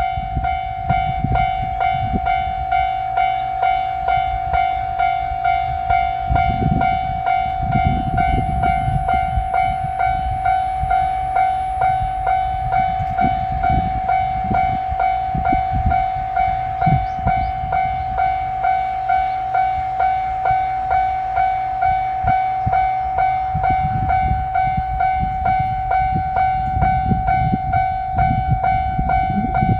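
Japanese level-crossing warning alarm ringing its steady repeated 'kan-kan' tone at an even rhythm, with low rumbling coming and going underneath.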